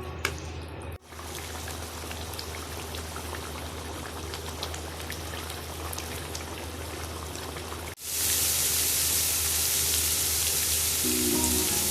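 Food frying in a karahi pan, with an even sizzle and fine crackling. The sizzle jumps louder at a cut about eight seconds in, and music comes in near the end.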